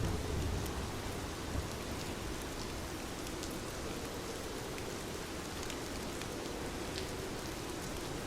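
Steady rain falling on a surface, with individual drops ticking through the hiss and a low rumble in about the first second.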